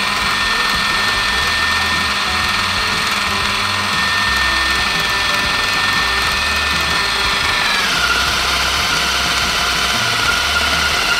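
Electric motor of a Cool Maker hair-extension maker toy running steadily as it draws a ribbon through to make a hair piece, a whine that drops in pitch after about eight seconds.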